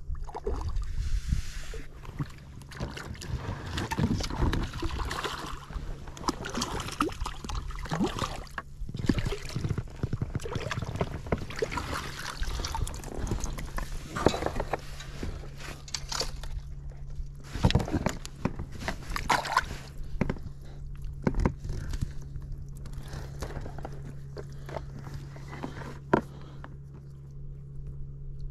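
Water splashing and sloshing as a hooked fish is played and scooped into a landing net beside a float tube, with irregular clicks and knocks of handling the rod and net.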